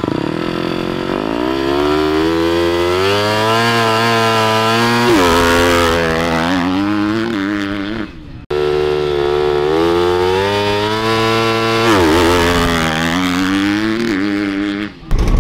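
KTM dirt bike launching on practice starts, twice. Each time the engine revs up with the pitch climbing, drops once at a gear change about four seconds in, then climbs again as the bike pulls away.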